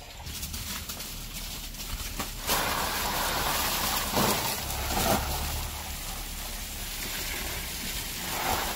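Water spraying onto banana plants and wet soil: a steady hissing patter that grows louder about two and a half seconds in.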